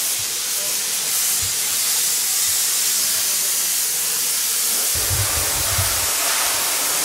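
Steam-wash jet hissing steadily as it is sprayed over a motorcycle, the low-water steam cleaning method. A few low thumps come about five seconds in.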